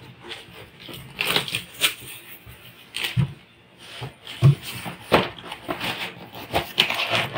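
Cardboard packaging being handled: irregular rustling and scraping of the box and its cardboard inserts, with a few short knocks, as a stainless steel mixer-grinder jar is moved inside the box.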